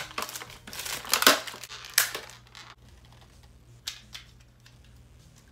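Clear plastic packaging crinkling and rustling as it is handled and pulled off a fashion doll, loudest about a second and two seconds in. After that it dies down to a couple of small clicks.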